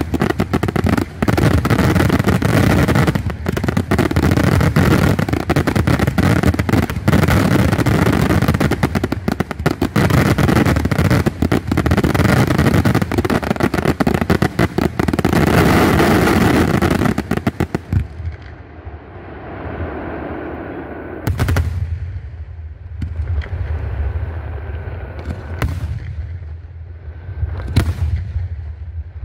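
Aerial fireworks shells bursting in a dense, rapid barrage of bangs: the finale of a pyrotechnic display. About eighteen seconds in the barrage stops suddenly, and only a few separate booms follow.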